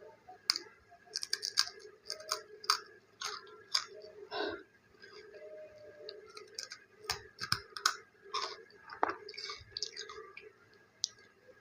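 Chewing of a crispy snack: irregular sharp crunches and mouth clicks.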